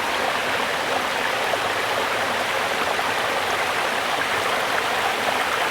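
High waterfall pouring and splashing into a creek: a steady, even rush of falling water.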